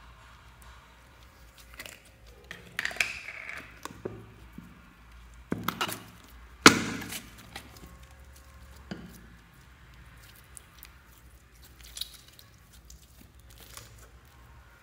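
Handling a plastic tube of pearly slime: irregular clicks, knocks and soft squelches as the tube is opened and the slime is worked out by hand, with one sharp knock about halfway through as the loudest sound.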